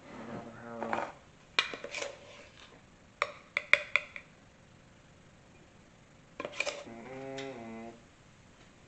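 Kitchenware being handled on a stone counter: a metal coffee tin picked up and set about beside a ceramic mug, giving a few quick clusters of sharp clinks and knocks. A short murmur of voice comes at the start and again near the end.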